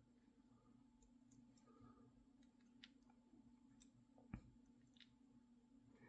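Near silence with a few faint, sparse clicks of small padlock parts being handled and set down, the sharpest about four seconds in, over a low steady hum.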